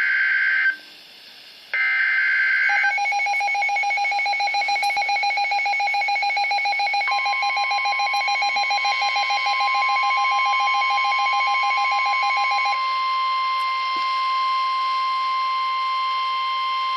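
NOAA Weather Radio EAS alert: the SAME digital header data bursts, a harsh buzzing screech, twice with a short gap. Then a rapidly pulsing alert beep starts, joined about seven seconds in by the steady 1050 Hz NWR warning alarm tone, which holds on alone after the beeping stops about thirteen seconds in.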